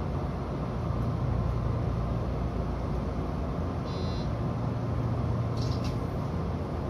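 Odakyu 2000 series electric commuter train heard from inside the driver's cab, a steady low running rumble as it pulls slowly away from the station. A short high beep sounds about four seconds in, and a few brief high tones follow near six seconds.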